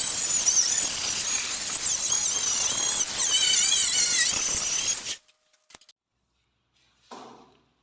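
A power tool working on a car body panel: a loud whine whose pitch wavers up and down as it bites, over a harsh hiss. It cuts off suddenly about five seconds in, followed by a couple of faint clicks and a short soft knock near the end.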